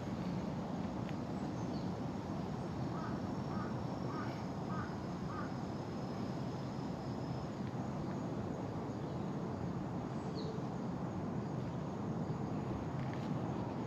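A bird calls a quick run of about five short calls a few seconds in, over steady outdoor background noise.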